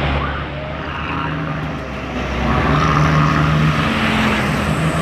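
A heavy road vehicle's engine running as it passes on the road, growing louder about halfway through.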